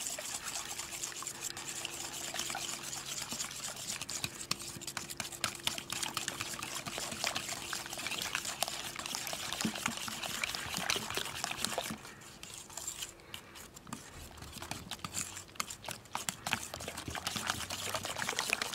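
Wire whisk stirring cream and sauces in a stainless steel bowl: a fast run of metallic scraping and clicking with sloshing liquid. It gets lighter and more broken about twelve seconds in.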